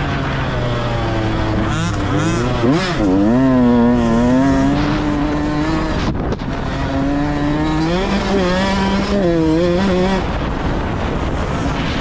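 Dirt bike engine heard from on the bike as it rides a motocross track, its revs rising and falling with the throttle. The engine note drops out briefly just after the middle, as the throttle is chopped, then climbs again.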